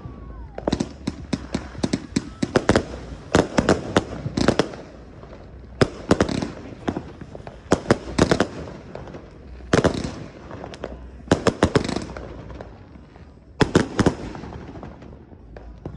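Odyssey 153-shot firework cake firing: rapid volleys of sharp bangs and crackles, several shots a second, broken by short lulls. The last volley comes near the end.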